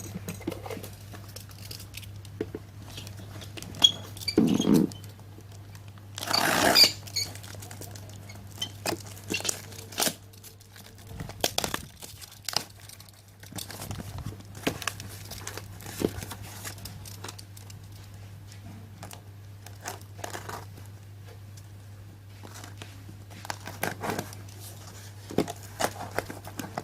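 A parcel being torn open and unwrapped by hand: crinkling and tearing of the packaging with scattered clicks and rustles, and one loud rip about six to seven seconds in. A steady low hum runs underneath.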